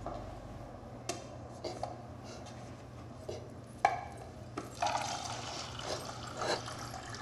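A few light clicks and knocks of a paper cup and the tap handle of a coffee urn, the sharpest a little before four seconds in, then from about five seconds in coffee pouring from the urn's spout into the cup, over a low steady hum.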